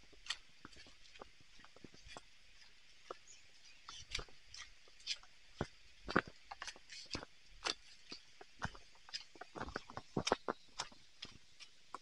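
Footsteps on a stone-paved forest path: short, irregular scuffs and knocks, a step or two a second, coming closer together near the end, over a faint steady high hiss.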